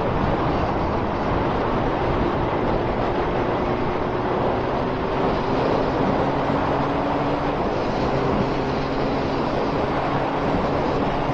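Honda Fireblade's inline-four engine pulling steadily at road speed, nearly buried under loud wind rush on the microphone. The engine drone shifts a little in pitch partway through.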